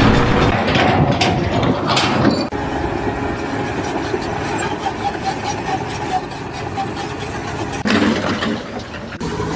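A running engine, with the sound changing abruptly about two and a half seconds in and again near the end.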